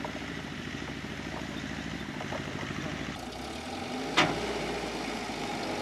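A vehicle engine idling steadily, with one sharp knock about four seconds in.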